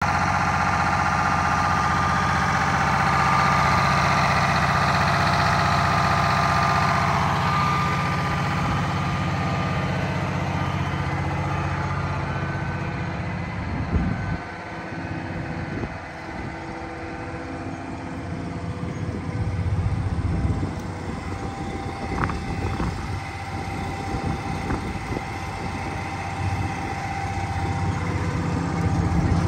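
Detroit Diesel engine of a 1978 Ford 9000 truck idling steadily, growing fainter about halfway through.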